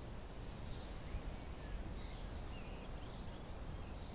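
Quiet room ambience with a steady low rumble, and faint bird chirps now and then.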